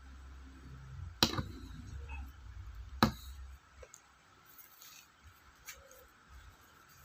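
Paintbrushes being handled at a desk: two sharp taps about two seconds apart, over a low handling rumble that stops about halfway through.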